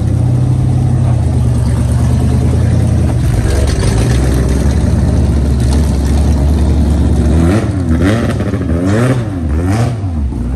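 Car engine held at high, steady revs for several seconds, then revved up and down in quick repeated blips, about one a second, from about seven seconds in.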